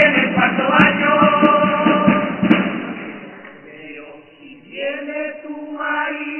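A chirigota's men's chorus singing in unison, backed by Spanish guitars and sharp drum strokes. About three seconds in the song thins out briefly, then the voices come back strongly near the end.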